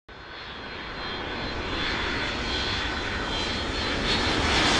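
Jet airliner passing overhead: a steady engine rumble and rush with a thin whine on top, rising from silence and growing steadily louder as it approaches.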